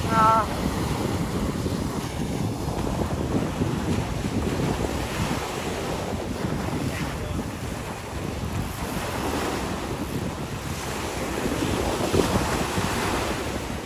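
Ocean surf breaking and washing up a sandy beach, swelling and easing with each wave, with wind buffeting the microphone. A brief wavering squeal right at the start is the loudest sound.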